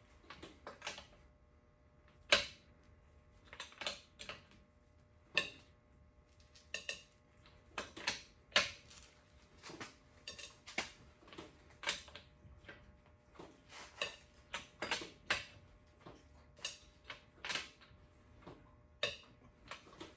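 Scattered metal clinks and knocks of hand tools and car parts being handled, about one a second at irregular spacing, with a sharper knock about two seconds in.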